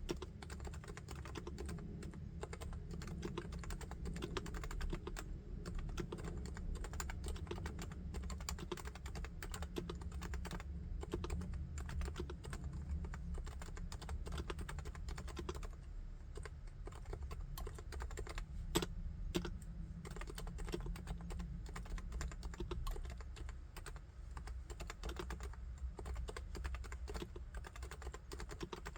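Continuous fast typing on a Topre Realforce R3 electrostatic capacitive keyboard: a dense, steady run of keystrokes, with one louder key strike about two-thirds of the way through.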